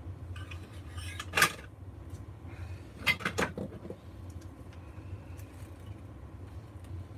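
Hand tools and scrap metal pieces being picked up and set down on a wooden workbench: one sharp clack about a second and a half in, then a quick run of clinks and knocks around three seconds in, over a steady low hum.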